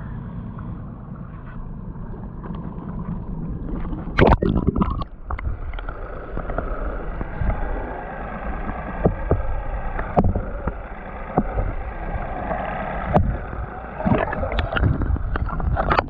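Water sloshing and splashing around a boat, with a loud splash about four seconds in and scattered sharp knocks after it; a low engine hum sits underneath at first.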